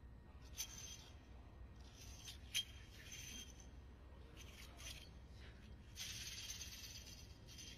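Faint swishing and rattling of a wushu spear as it is swung and whipped, in several short bursts, with one sharp knock about two and a half seconds in.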